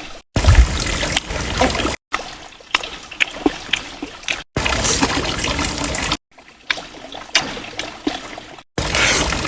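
Water trickling and splashing with scattered small knocks, broken into short pieces by abrupt cuts about every two seconds.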